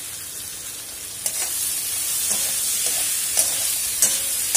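Potatoes and tomato-onion masala sizzling steadily in a metal kadai, while a steel spatula stirs them, scraping and clicking sharply against the pan a few times.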